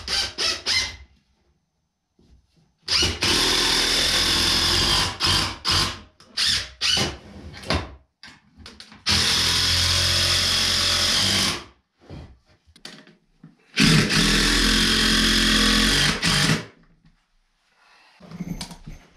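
Cordless drill-driver driving screws into 2x4 pine offcuts: three long runs of about two and a half seconds each, with short blips of the trigger and clicks of handling between them.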